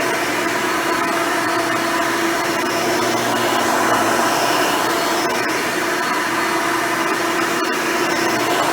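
Hoover Elite upright vacuum cleaner running steadily, its motor hum and airflow holding an even pitch, with its dual-row brush roll turning.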